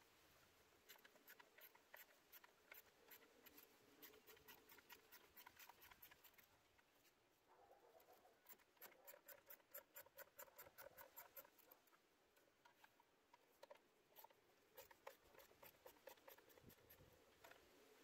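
Faint, rapid clicking of a socket ratchet turning out the upper intake plenum bolts, in several runs of quick clicks with short pauses between them.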